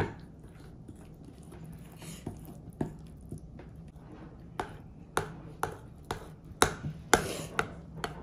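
A mixing utensil knocking against a bowl while stirring pancake batter. There are a few scattered taps at first, then about two taps a second from about halfway in.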